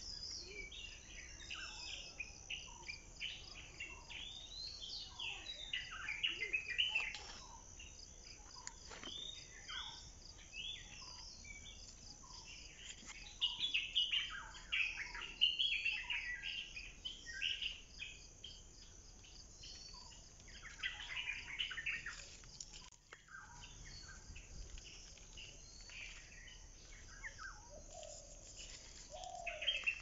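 Birds chirping and calling in clusters of short notes, over a steady high-pitched insect trill.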